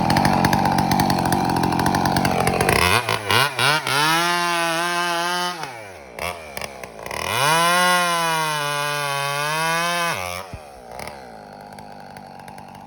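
Two-stroke chainsaw cutting into teak at full throttle, then pulled out of the cut and revved freely twice, each rev rising, holding and falling away, before dropping back to a quieter idle near the end.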